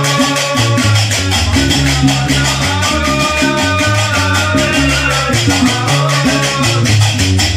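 Gnawa music: the low plucked bass of a guembri repeats a riff under the fast, steady clacking of qraqeb metal castanets.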